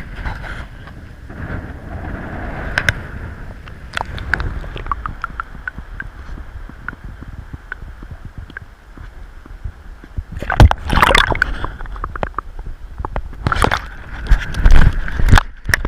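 Water sloshing and splashing, with scattered clicks and knocks and a low wind rumble on the microphone; two louder bursts of splashing come about ten seconds in and again near the end.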